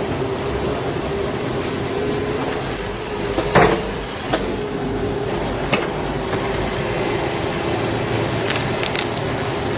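A heavy machine's engine running at a steady pitch, with one sharp knock about three and a half seconds in and a few lighter clanks after.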